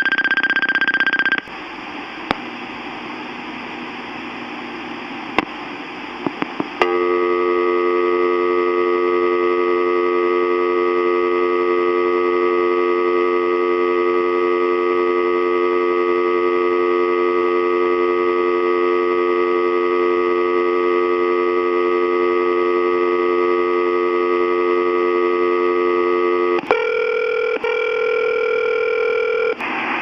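Telephone dial tone recorded on an answering machine's incoming-message cassette, played back: a caller has hung up without speaking and the line's dial tone was recorded. A short beep opens it, then a few seconds of tape hiss with clicks, then the steady dial tone for about twenty seconds, switching to a different steady tone near the end.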